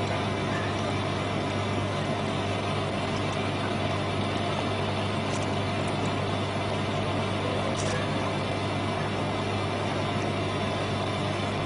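Steady mechanical hum with a low drone and a few fixed tones, unchanging throughout, with two faint ticks about five and eight seconds in.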